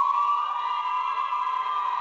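A crowd cheering and screaming, a high-pitched held shriek that swells just as it begins.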